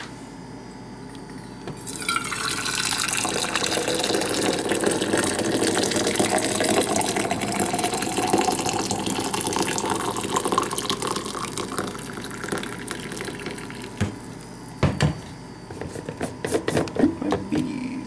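Coffee pouring from a Black & Decker thermal carafe into a stainless steel travel mug, starting about two seconds in. The pitch of the filling rises steadily as the mug fills. The pour then stops, and a few knocks follow near the end.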